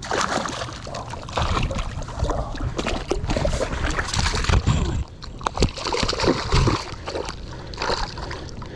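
Irregular water splashing and sloshing as a hooked sauger thrashes at the surface while it is being landed.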